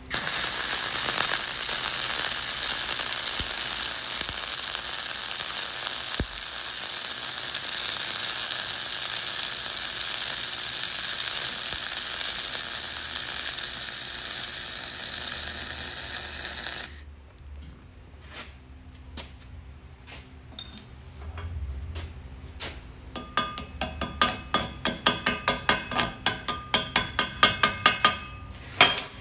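Flux-cored, gas-shielded (dual shield) wire-feed welding arc running steadily for about 17 seconds, then cutting off. After that a chipping hammer knocks slag off the weld: scattered taps at first, then a quick run of sharp metal strikes, about four a second, loudest near the end.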